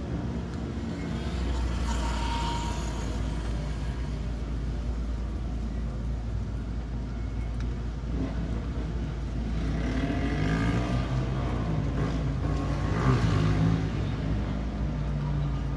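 Road traffic heard from inside a stopped car's cabin: a steady low engine hum. Motorcycles pass close alongside near the end, their engine notes rising and falling, loudest as they go by.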